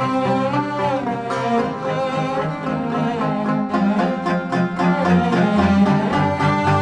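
Background music played on string instruments: sustained, wavering melody notes over a plucked accompaniment.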